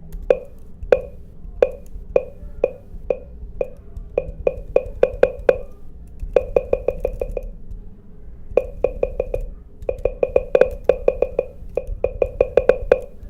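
macOS Big Sur volume-change feedback sound: identical short pops, one for each press of the volume keys, in quick runs with two short pauses. The pops get louder and softer as the volume is stepped up and down.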